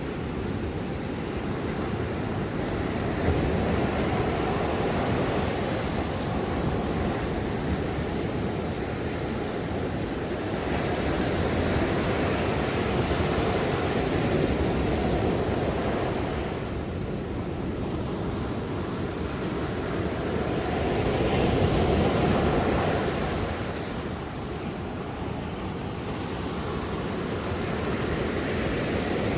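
Ocean surf: waves breaking and washing in a continuous rush that swells and ebbs every several seconds.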